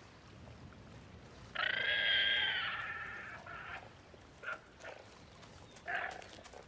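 A high-pitched wild animal call lasting about two seconds, followed by a few short, sharp calls.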